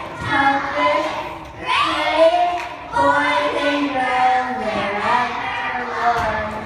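Children singing a song, with held, sliding notes.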